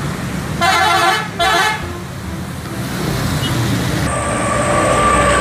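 Tour bus's multi-tone musical "telolet" horn blaring twice in quick succession over engine and traffic noise, with a steady high tone coming in about four seconds in.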